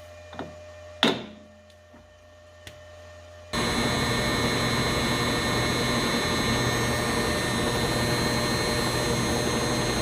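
A few sharp clicks of small parts being handled, the loudest about a second in; then, about a third of the way through, a power tool starts abruptly and runs steadily with a faint high whine.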